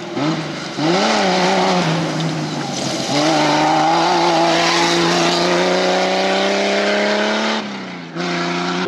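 Jeep CJ-5 off-road race car's engine revving hard on a dirt track, with two quick rises and falls in pitch, then a long climb in pitch for several seconds as it accelerates past, over the hiss of tyres throwing loose dirt. The engine sound drops out abruptly near the end and comes back steadier.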